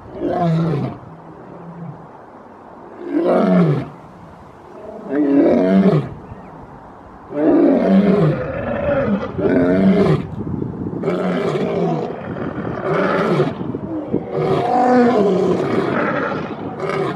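Male lion roaring: a bout of deep calls, each falling in pitch, spaced a couple of seconds apart at first and then coming almost without pause from about seven seconds in.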